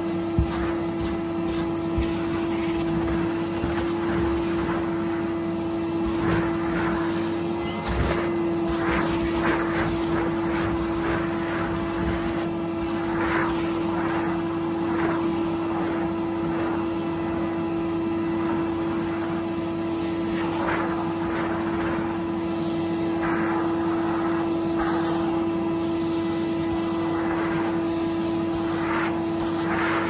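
Henry canister vacuum cleaner running with a steady motor hum, its floor tool pushed back and forth over a thick-pile rug, each stroke adding a short rushing sweep.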